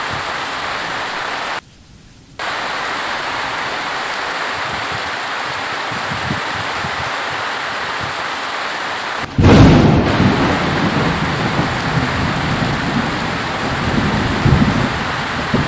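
Steady heavy rain hissing, which cuts out for a moment about two seconds in. About nine seconds in, a sudden loud crack of thunder breaks in and rolls on as a low uneven rumble over the rain.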